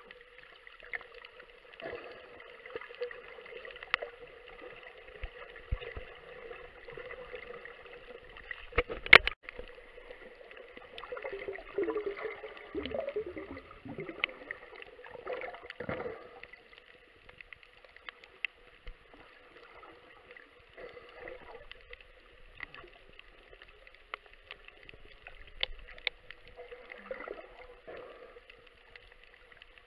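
Muffled underwater sound picked up by a camera in its housing: scattered clicks and crackles, a sharp knock about nine seconds in, and a stretch of gurgling from about eleven to sixteen seconds in.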